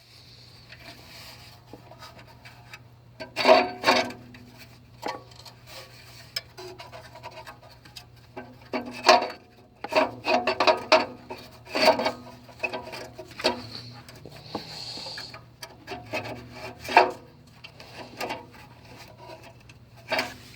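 Loose exhaust heat shield on a 2007 Nissan Altima rattling in irregular bursts of sharp metallic clicks. This loose shield is the cause of the rattle the car makes at start-up.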